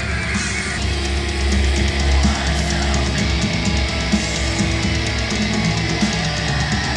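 Heavy metal with distorted guitar and drum kit, played through a small desktop speaker and picked up by a microphone. About a second in the sound turns fuller, with more bass and more treble.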